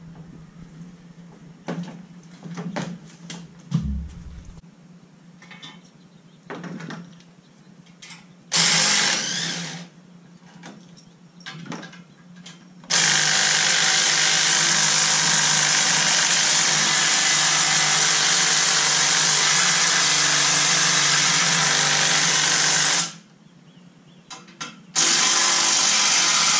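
A handheld power tool, drill-type, runs in a short burst, then steadily for about ten seconds, stops, and starts again near the end. Before that there are scattered light metal knocks and clanks.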